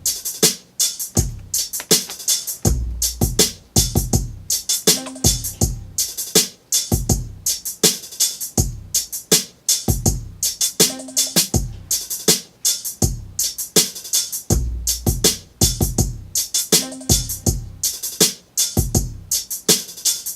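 Programmed hip-hop drum-machine beat played back from a Native Instruments Maschine MK3: deep kick drums that fall in pitch, with snare and bright hi-hats in a loop that repeats about every six seconds.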